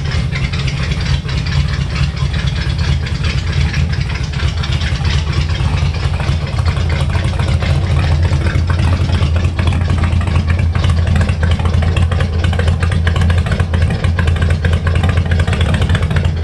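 1950 Buick Special's engine idling steadily, a loud low exhaust rumble with a fast, even pulse.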